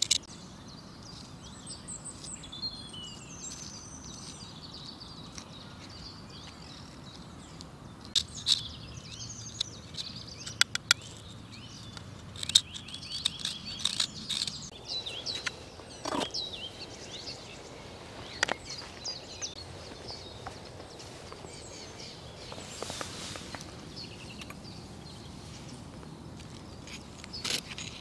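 Knife blade scraping and shaving dry driftwood in scattered short strokes, with birds chirping in the background.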